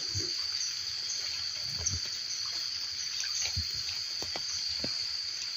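Steady high-pitched drone of a forest insect chorus, with a few soft, short knocks scattered through it.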